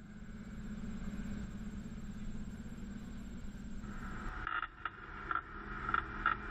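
Vintage Dodge Power Wagon engine running steadily with a low hum; about four seconds in, the engine sound drops back under a run of sharp knocks and rattles.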